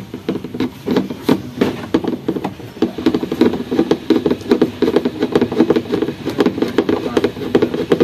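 Screwdriver working at a twin-tub washing machine's black plastic base: a fast, uneven run of sharp knocks and rattles from the hollow plastic housing.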